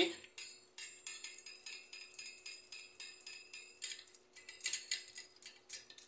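Light metallic clicks, taps and clinks of small metal parts as an air fryer's fan motor is taken apart by hand and its bridge bracket removed, over a faint steady hum.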